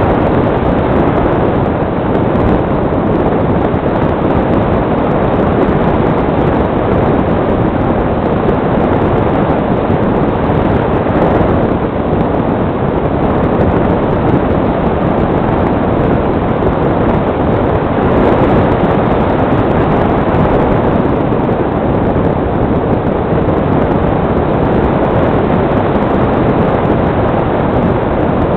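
Steady rush of air over an onboard camera on a gliding radio-controlled model plane, heard as a constant wind noise on the microphone.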